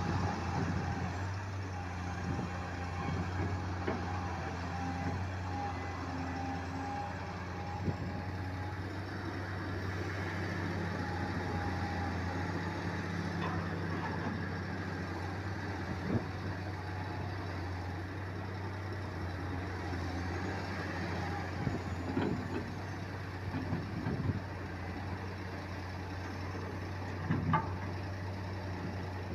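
Cat 374D hydraulic excavator's diesel engine running steadily under a continuous, even hum, with a few short clanks about two-thirds of the way through and again near the end.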